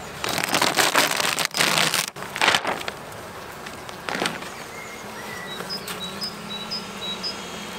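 A clear plastic cover sheet being peeled off the top bars of a beehive, crinkling and rustling loudly for the first two and a half seconds, with a shorter rustle about four seconds in. Under it runs a faint steady hum of bees, and short high chirps come near the end.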